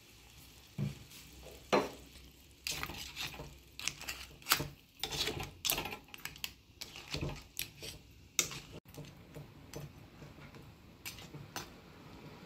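A metal spoon stirring a wet crab curry in a metal kadai, scraping and clinking irregularly against the pan. After about eight seconds it eases off to a few light taps.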